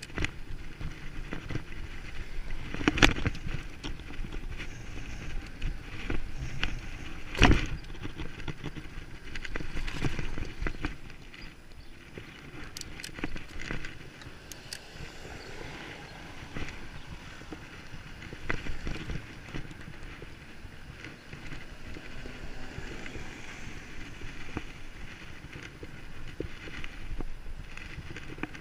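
Bicycle being ridden over rough ground, rattling and clattering, with two loud knocks about three and seven seconds in.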